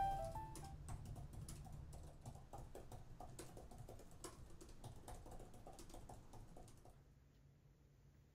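Typing on a laptop keyboard: quick, irregular key clicks that fade out about seven seconds in. The last notes of a piano tune die away in the first half-second.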